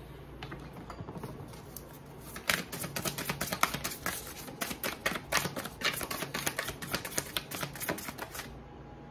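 A deck of oracle cards being shuffled by hand: a dense run of quick clicks and flicks, starting about two and a half seconds in and stopping shortly before the end.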